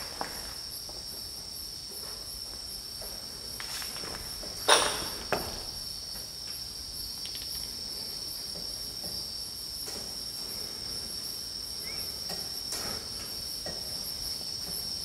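Crickets chirping steadily, a continuous high trill. A sharp knock about five seconds in is the loudest sound, with a few fainter clicks and shuffles scattered through.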